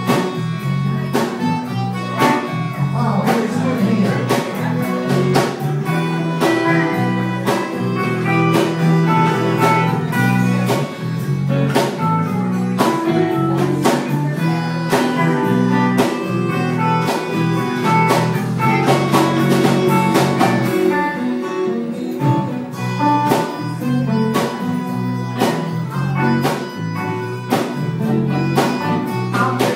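Live band playing an instrumental passage on banjo, acoustic guitar, electric bass and electric guitar: many quick plucked notes over a steady, moving bass line.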